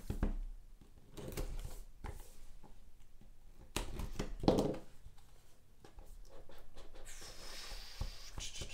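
Utility knife slitting the tape seal on a small trading-card box, with scrapes and light knocks as the box is handled. A louder scraping, hissing stretch comes near the end.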